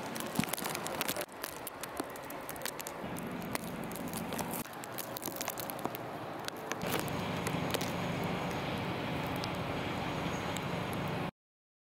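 City street ambience: a steady wash of traffic and air noise dotted with many small crackles and clicks, with a low hum coming in partway through. It cuts to silence near the end.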